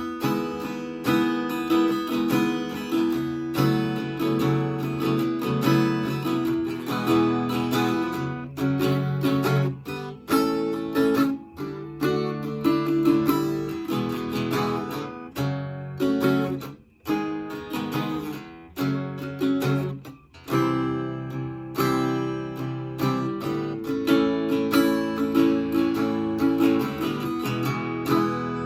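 Stella acoustic guitar being played: strummed chords and picked notes in a steady rhythm, with a couple of brief breaks partway through and the last chord ringing out at the end.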